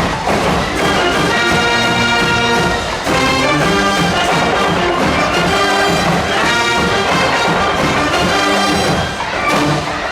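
A large high school wind band playing loudly in an indoor arena, its brass section of trumpets and trombones sounding sustained chords in phrases of a few seconds each.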